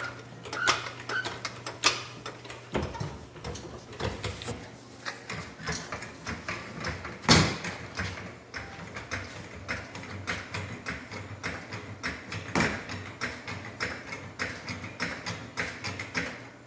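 Irregular mechanical clicking and knocking from hand work on a car, with louder knocks about seven and twelve seconds in and a quicker run of clicks near the end, over a faint steady low hum.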